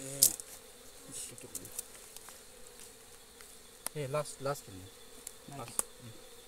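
Honey bees buzzing around a nest exposed in a cut-open tree trunk: a steady hum, with a few louder buzzes that bend in pitch as bees fly close, around four seconds in and again near the end. A few short sharp knocks from work at the wood are heard among them.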